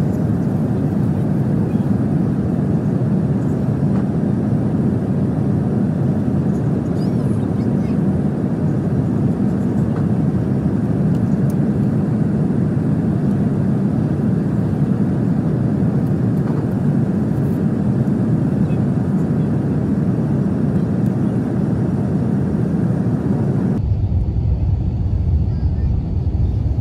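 Steady roar of an Airbus A350-900 in flight, airflow and its Rolls-Royce Trent XWB engines heard inside the cabin at the window seat. Near the end the sound suddenly turns duller and deeper, its higher hiss gone.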